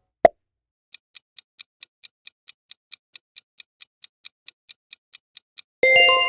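Quiz sound effects: a short pop as the last answer option appears, then a countdown timer ticking about four times a second for some four and a half seconds. The ticking ends in a loud, bright ding chime that rings on and fades, marking the reveal of the correct answer.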